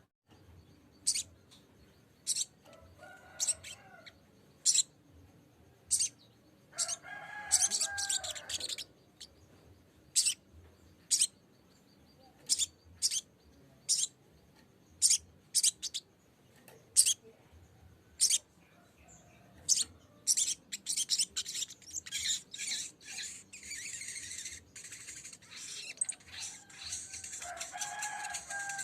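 Sogok ontong (sogon, a spiderhunter) calling: sharp, high single chips about one a second, broken by fast chattering phrases. The longest phrase starts about twenty seconds in and runs on. This is a lure call meant to provoke a rival to answer.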